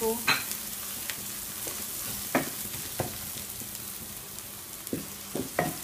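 Onions and ground spices sizzling in a nonstick wok while a wooden spoon stirs them, with several short knocks of the spoon against the pan.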